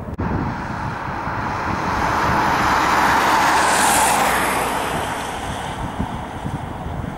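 A car passing close by: its tyre and road noise swells to a peak about four seconds in, then fades. Wind buffets the microphone underneath.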